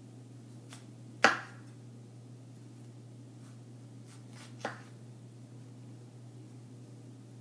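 Kitchen knife slicing an onion and knocking on a wooden cutting board: one sharp knock about a second in and a softer one a little past the middle, over a steady low hum.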